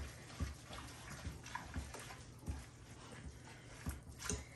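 Quiet kitchen handling: a few faint, soft, irregular knocks, with quiet wet sounds of food being mixed.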